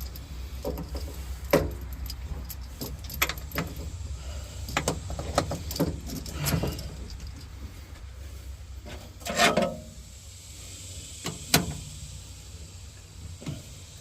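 Scattered metallic clicks and knocks of hydraulic hose fittings and lines being handled on a mini excavator, with a few louder knocks, over a low steady hum.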